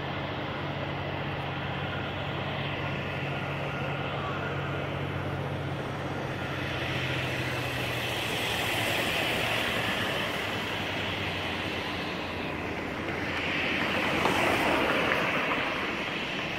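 Jet airliner's engines running on the distant runway, a steady rumble. A small van drives past close by, rising to its loudest about two seconds before the end and fading again.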